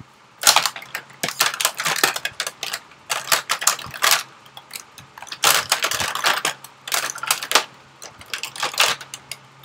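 Makeup items clicking and clattering against each other as they are rummaged through to find a lip liner, in quick clusters with short pauses.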